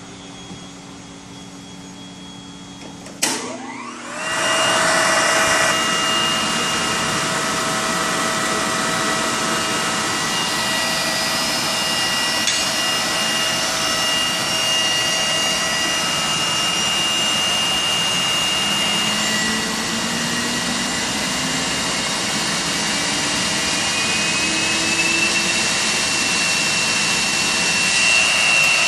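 Gast R7100 regenerative blower, the vacuum-table pump, switched on with a click about three seconds in. It spins up within a second from a quieter hum to a loud, steady whine with several held tones. In the second half some of the tones slide slowly upward in pitch.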